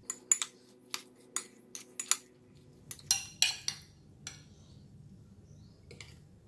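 Metal spoon clinking against a glass bowl as pickled vegetables are stirred: a quick run of sharp clinks over the first four seconds, then only a couple of soft taps as the vegetables are spooned onto a plate.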